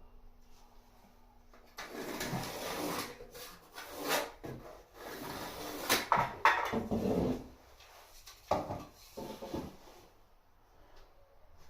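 Irregular scraping and handling noises with several sharp knocks, the loudest about halfway through and another a little later, from hands-on work fitting a loft ladder.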